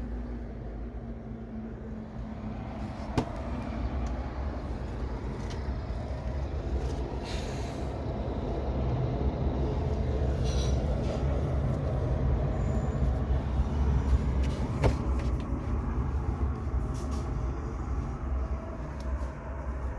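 Steady rumble of passing traffic that swells through the middle, with a couple of sharp clicks about three seconds in and near the end of the loud stretch.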